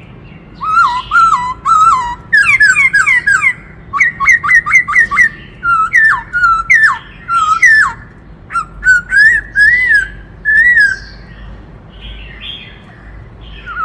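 Black-throated laughingthrush singing: loud whistled notes, some falling and some rising, in quick runs and bursts, fading to quieter calls near the end.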